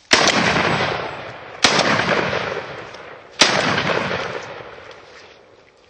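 Three shots from a Rock Island Armory VR60 12-gauge semi-automatic shotgun, about a second and a half apart, each a sharp bang followed by a long fading tail.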